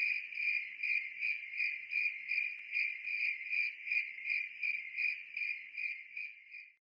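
Crickets chirping in a steady pulsing trill, about three pulses a second, fading out near the end.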